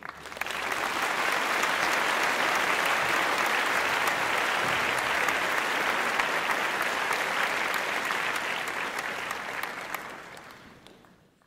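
Audience applauding: many hands clapping together. It starts suddenly, holds steady, then dies away over the last couple of seconds.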